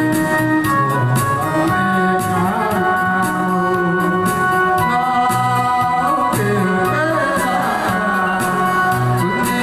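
Song accompaniment music: an electronic organ melody over a steady repeating bass beat.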